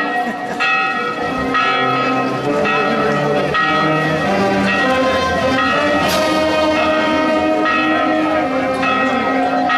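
Church bells ringing, about one strike a second, each stroke's ringing overlapping the next.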